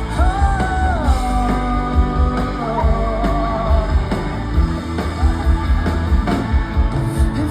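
Live rock band performance: a male voice sings long held notes that slide from one pitch to the next, over a full band with a steady drumbeat and heavy bass.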